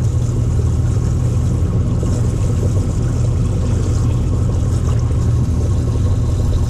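An engine running steadily at idle, a low, even drone that holds unchanged throughout.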